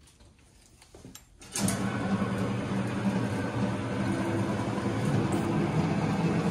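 A motor starts suddenly about a second and a half in and runs steadily with a low hum.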